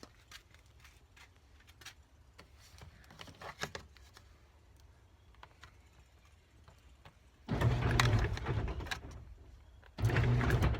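Quiet with faint clicks, then, about seven and a half seconds in, an electric garage door opener starts running loudly with a steady low hum. It dies away after about two seconds and starts again just before the end.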